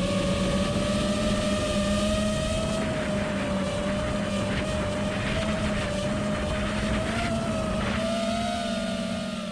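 5-inch FPV quadcopter's brushless motors and propellers whining steadily in flight, the pitch shifting slightly with throttle changes, fading out near the end.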